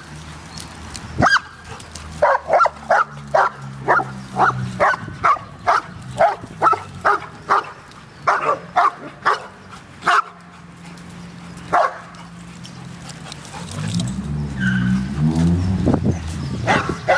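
A dog barking: a long run of quick barks, about three a second, followed by a few single barks. Near the end there is a low sound that rises and falls in pitch.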